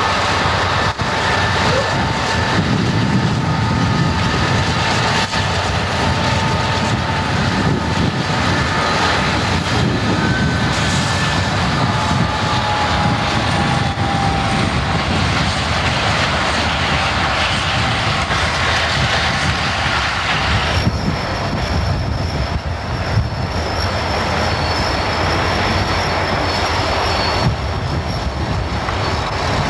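Freight train rolling past: a steady rumble of steel wheels on rail, with thin, high wheel squeals through the first half. About two-thirds of the way in, the sound changes abruptly as the highest sounds drop away.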